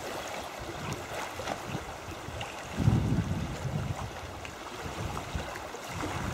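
Wind-driven small waves lapping on a rocky lakeshore, with wind on the microphone and a stronger gust rumbling about three seconds in.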